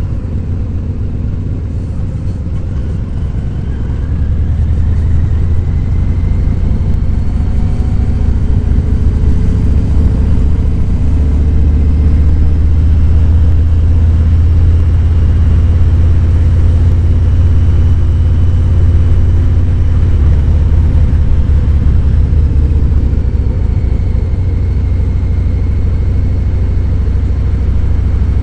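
Harley-Davidson Fat Boy 107's Milwaukee-Eight 107 V-twin engine running on the road, a deep steady rumble that gets louder about four seconds in and again around twelve seconds as the throttle is opened.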